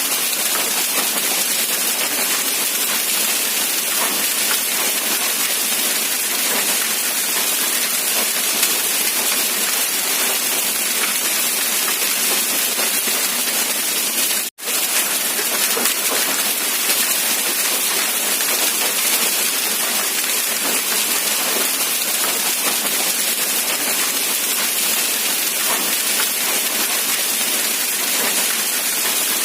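Steady, dense rain hiss with no distinct drops standing out. About halfway through it cuts out for a split second, then resumes unchanged.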